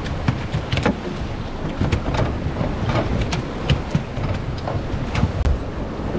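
Wind buffeting the microphone over rough sea and waves surging against rocks, with scattered short crackles and splashes.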